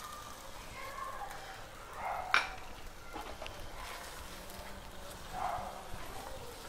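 Wooden spatula stirring and scraping through watery pea-and-paneer gravy in a nonstick frying pan, soft wet strokes with one sharp knock of the spatula against the pan about two seconds in.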